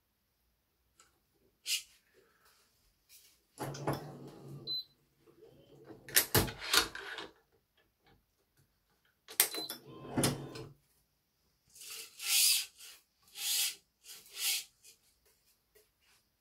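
Badminton racket being strung by hand with Yonex BG80 string: clicks and knocks from the stringing machine's clamps and tensioner, mixed with rustling handling. Near the end come three short swishes of the string being pulled through.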